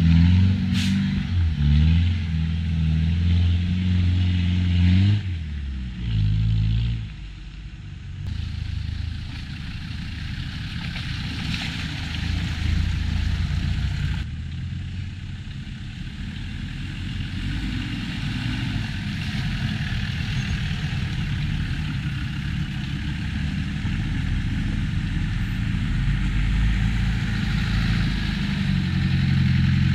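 Land Rover 4x4 engine working hard for about five seconds, then easing off; after a short lull, a rougher low rumble of the vehicle driving slowly builds up again toward the end.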